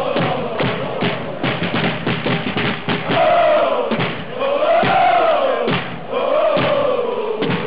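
Football supporters chanting together in the stands, with large bass drums beaten under the chant. The singing swells into long rising-and-falling phrases through the middle.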